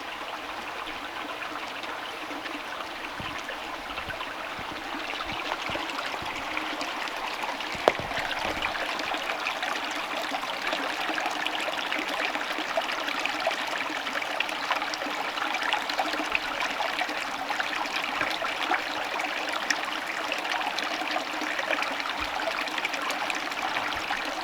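Small mountain stream running over rocks and splashing into a pool, a steady rush of water that grows louder about six seconds in. A single sharp click about eight seconds in.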